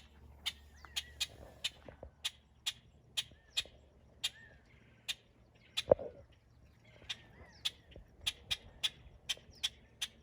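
Common mynas at a PVC emu feeder: sharp, irregular pecking clicks, two to four a second, with a few short calls.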